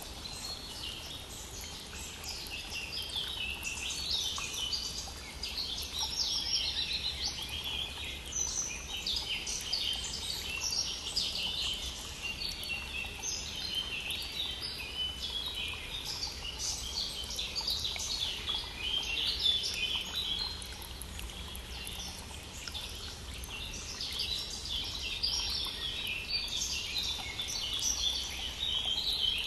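Many songbirds singing and chirping together in a continuous spring morning chorus, over the faint, steady rush of a flowing stream.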